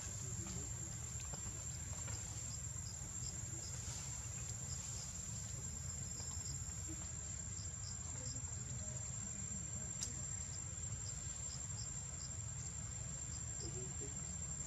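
Insects droning steadily at one high pitch, with short high chirps dotted through it and a low steady rumble underneath.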